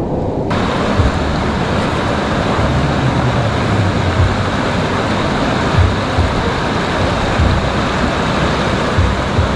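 Riding noise from a Benelli TRK 502X motorcycle on the move: a steady, loud rush of wind and road noise with uneven low buffeting. The hiss brightens about half a second in.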